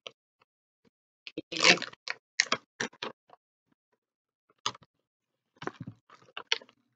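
A stiff plastic snack pouch's resealable zip being pulled open: a run of sharp crackly clicks for about two seconds, then the pouch crinkling a few more times as it is handled, near the end.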